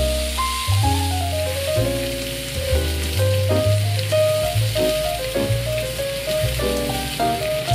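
A vegetable stir-fry sizzling in a frying pan, a steady hiss, under background music with a plucked melody and a bass line.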